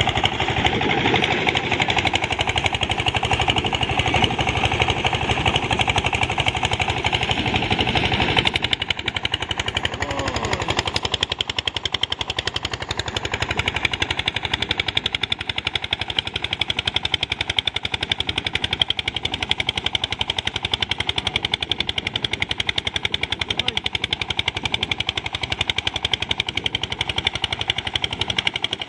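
Engine-driven rice threshing machine running, with a rapid, steady beat from its engine. About eight seconds in the sound changes and becomes a little quieter and duller.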